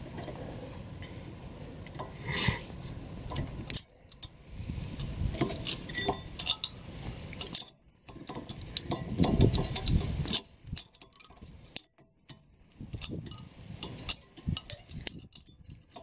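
Irregular metallic clinks and rattles of a new rear brake pad being pushed into its caliper carrier on a Toyota Avensis T27.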